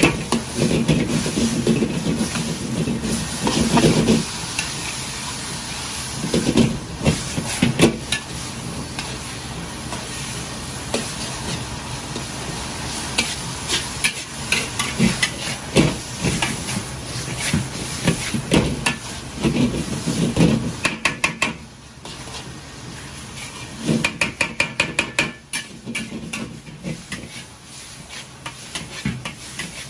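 Noodles and vegetables stir-frying in a large wok over a gas burner: steady sizzling while a metal ladle scrapes and clanks against the wok again and again. A quick run of rapid clanks comes about two-thirds through.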